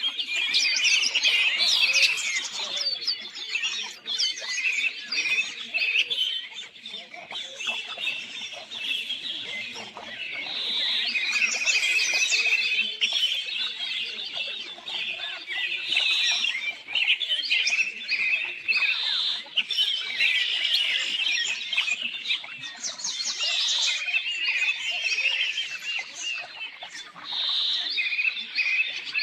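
Songbirds singing and chirping continuously, many quick high twittering notes overlapping.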